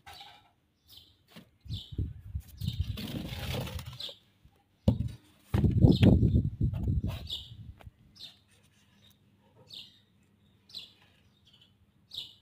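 Small birds chirping: short, high chirps scattered about once a second. Twice, about two seconds in and again around six seconds, a loud low rumble covers them for a couple of seconds.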